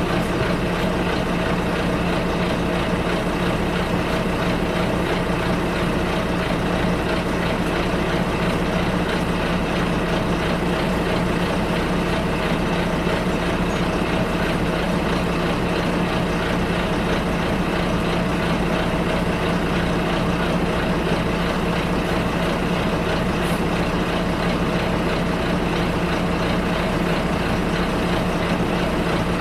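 Bus engine and road noise heard from inside the passenger cabin during a ride: a steady, unchanging drone with a low engine hum.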